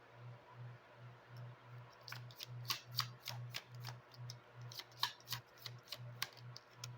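Oracle cards being shuffled and handled, with a run of sharp card snaps and taps from about two seconds in. A faint low throb pulses steadily underneath.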